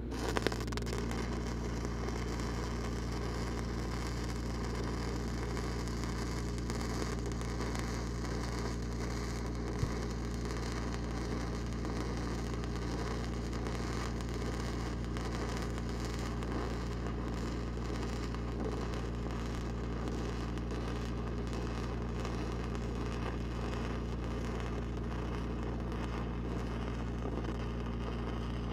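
Stick welding arc from a 5/32 E8010 cellulosic rod burning with a steady crackle and hiss. The arc is struck about half a second in and breaks off near the end, over a steady low engine hum.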